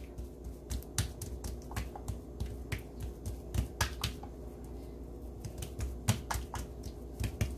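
Hands patting and pressing soft, oiled porotta dough flat against a granite countertop: irregular sticky taps and clicks, several a second, over a faint steady hum.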